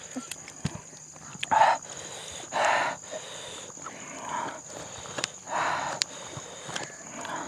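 Close-up eating sounds: several short crunchy bites and chewing of raw cucumber, about one every second or so, picked up by a clip-on microphone.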